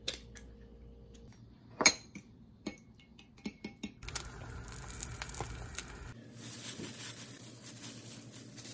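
An egg cracked on the rim of a ceramic bowl with sharp knocks, then a metal spoon clinking against the bowl as the eggs are beaten. After that comes a softer steady rustle.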